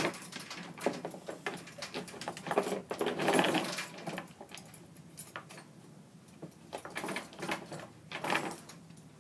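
A dog's metal tie-out chain rattling and scraping over wooden floorboards in uneven bursts as the dog moves about, with the rustle of the dog pawing at a cloth.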